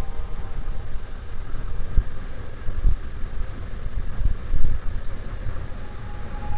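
Wind and road noise from a moving vehicle, picked up by an action camera's microphone: an uneven, gusty low rumble with no steady tone.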